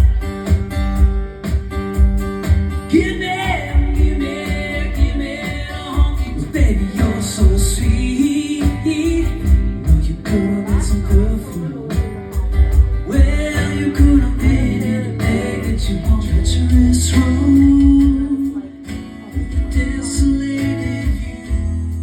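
Solo acoustic guitar playing a country-style song, with a man singing over it.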